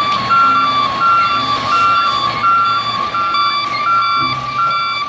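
Garbage trucks' backup alarms beeping in a steady, even pulse, about one and a half beeps a second, over a low engine hum.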